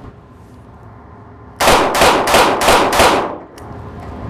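Smith & Wesson J-frame .38 Special snub-nose revolver, double-action only, fired five times in quick succession, about three shots a second, a little over a second in. Each shot rings off in the echo of the indoor range.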